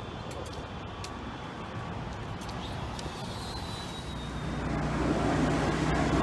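Steady vehicle noise that grows louder about four seconds in, with a low hum joining it.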